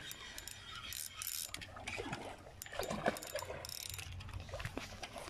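Fishing reel cranked to wind in line on a hooked carp: the reel's gears whirring and clicking irregularly.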